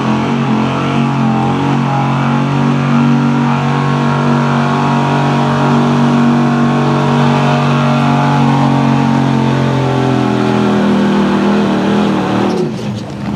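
Pickup truck engine held at high, steady revs under heavy load while pulling a weight-transfer sled. Near the end the engine note drops away as the truck slows to a stop.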